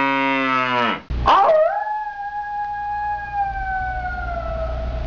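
A cow's moo that ends about a second in, then a long animal howl that rises at first, is held, and slowly slides down in pitch, over a low steady rumble.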